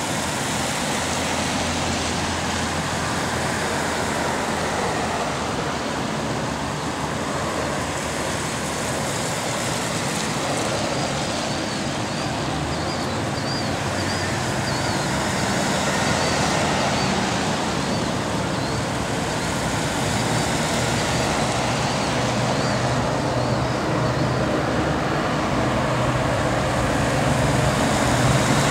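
Police cars driving slowly past one after another on a wet road: steady tyre hiss on wet pavement with low engine hum, growing a little louder near the end as the next car comes close.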